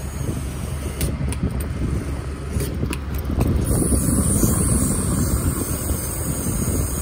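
Diesel fuel nozzle dispensing into a truck's fuel tank: a steady rushing, with a higher hiss joining about halfway through.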